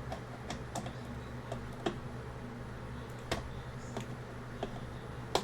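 Scattered light clicks and taps of a small screwdriver tip working against tiny screws in a mini PC's metal chassis, about one every half second to second, with a sharper tap near the end.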